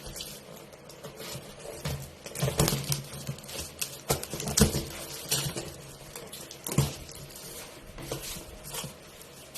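Packaging being opened by hand: irregular rustling, scraping and sharp knocks and clicks, some louder than others.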